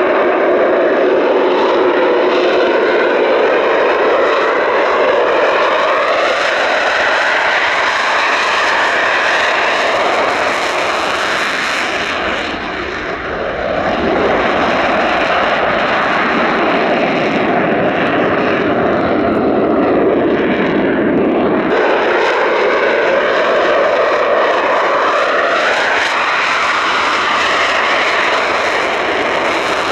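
Eurofighter Typhoon's twin jet engines running at takeoff power, a loud continuous roar whose pitch bands sweep up and down as the jet moves past, dipping briefly about halfway through before building again.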